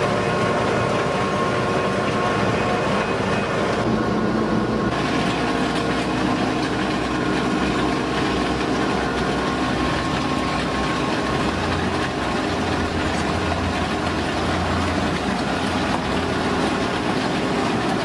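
Truck-mounted road-surfacing machine running steadily while it lays asphalt, a loud, even mechanical drone with steady hum tones.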